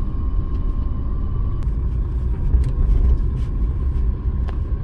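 Steady low rumble of a car driving, heard from inside the cabin: engine and tyre noise on a wet street, with a few faint clicks.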